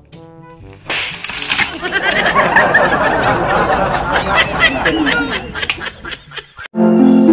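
A loud clatter about a second in as a wooden plank bench tips over with two boys on it, then the boys laughing hard for several seconds. A bright music jingle cuts in near the end.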